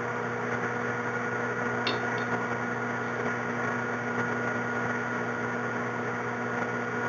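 Steady electrical hum, with a faint click about two seconds in.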